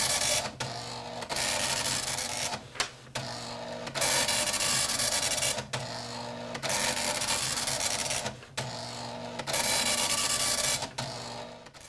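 Computer printer chattering in about ten passes, each lasting from half a second to a second and a half, with short breaks between them.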